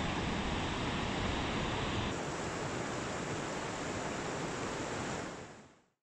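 Steady rush of the Blue Nile Falls' water pouring over rock. About two seconds in it changes to a thinner rush of river rapids, which fades out near the end.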